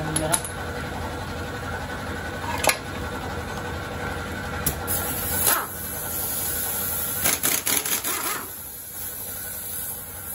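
Metal tools clinking against the scooter's rear clutch, then a pneumatic impact wrench running and hammering for about two and a half seconds as it loosens the clutch nut. It stops a couple of seconds before the end.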